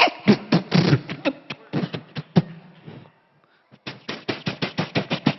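A man's mouth-made sound effects, beatbox-style: rapid runs of clicks and taps, a short silence about three seconds in, then a fast, even run of clicks.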